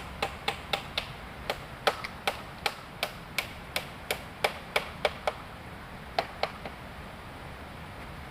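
A tool striking wood in a quick, steady run of hard chopping knocks, about three a second, each with a short ring. After a brief pause come two more knocks, then they stop.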